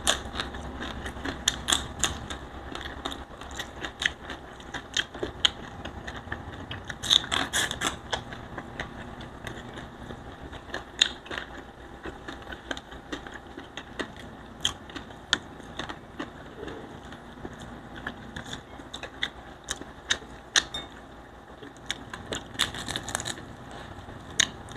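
Close-miked eating of crisp fried tilapia and rice by hand: chewing and crunching, with fingers picking at the crispy fish, heard as irregular sharp clicks that come thicker about seven seconds in and again near the end.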